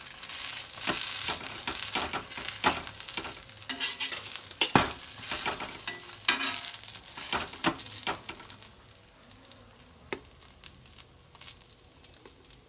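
Oiled paratha sizzling on a hot iron tawa, with a flat steel spatula flipping it and scraping against the pan in sharp clicks. The sizzle dies down over the last few seconds.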